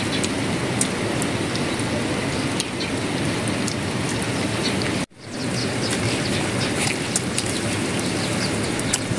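A steady hiss of outdoor background noise with scattered faint ticks. The sound cuts out for a moment about five seconds in, then returns the same.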